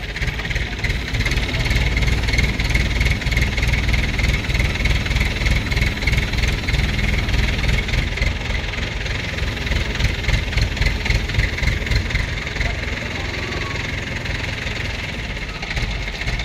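A crane's engine running steadily while it holds a heavy machine on its hook. The low rumble grows louder about a second in and eases off after about twelve seconds.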